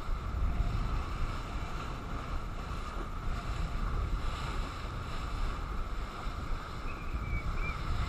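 Wind buffeting the microphone over the steady rush of water along a sailboat's hull as it sails heeled in a fresh breeze.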